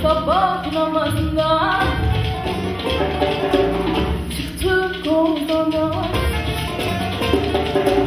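Live Anatolian folk music from a stage ensemble: a melody of notes that slide up into pitch over a steady low drone.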